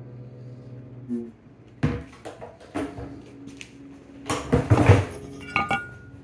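The last strummed chord of an acoustic-electric guitar dying away over the first second, then a string of knocks and rustles as the guitar is set aside and the phone is handled, loudest about four to five seconds in when a hand bumps against the phone.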